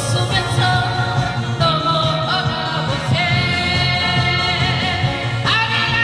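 A woman singing a song over backing music, holding long notes with a slight waver.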